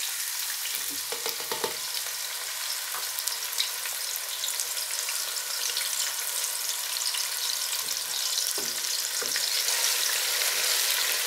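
Diced red onions frying in hot palm oil and vegetable oil: a loud, steady crackling sizzle that grows a little louder near the end as a wooden spoon stirs them.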